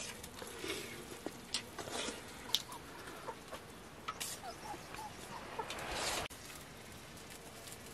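Hens clucking in short soft calls, with scattered sharp clinks of spoons on steel plates. The sound cuts off abruptly about six seconds in, leaving a quieter background.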